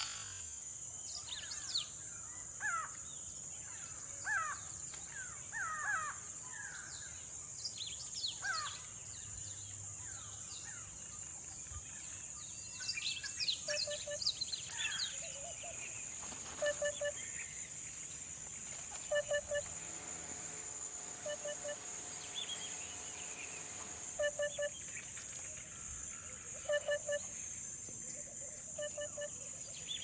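Wild birds chirping and calling over a steady high-pitched buzz. Many quick sweeping chirps come in the first half, and from about halfway a low note is repeated in twos and threes every couple of seconds.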